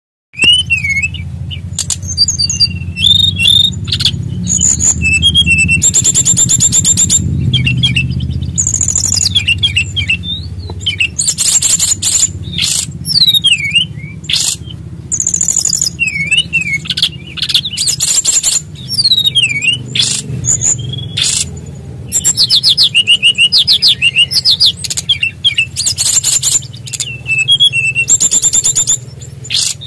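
SRDC (sikatan rimba dada coklat, a jungle flycatcher) singing vigorously in a long, varied rolling song of high whistled notes and pitch glides, broken up by fast, loud rattling trills. A steady low hum runs underneath.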